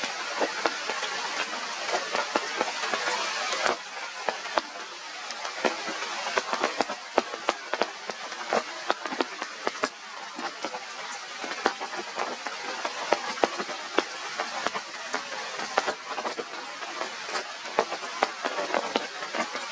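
Heavy rain falling: a steady hiss with many sharp drops tapping close by.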